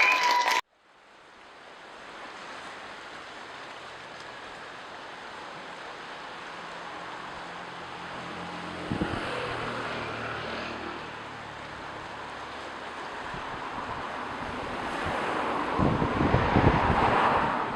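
Ocean surf washing in, a steady hiss of waves that swells and eases, with wind buffeting the microphone near the end.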